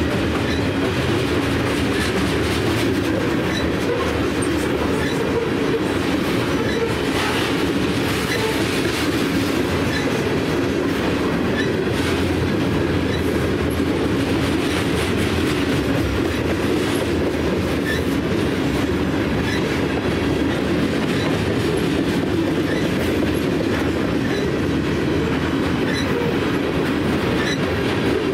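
CN freight train of covered hopper cars rolling past at close range: a steady rumble with the clickety-clack of steel wheels over the rails.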